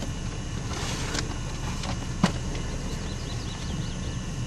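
Steady low rumble of a car heard from inside the cabin, with a single sharp click about two seconds in.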